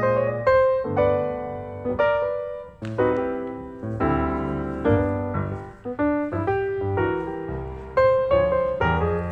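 Piano background music: a steady stream of struck notes and chords ringing and fading.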